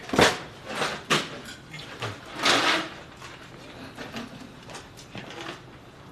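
People shifting on metal folding chairs: a handful of short scrapes and knocks in the first three seconds, the longest about two and a half seconds in, then quieter rustling.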